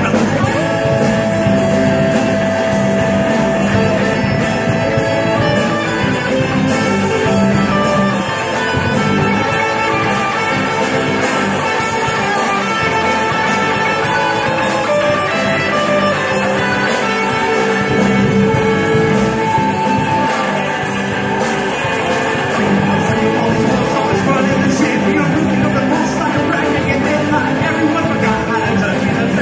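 Live rock band playing: a singer over electric guitars and drums, with cymbal hits keeping a steady beat.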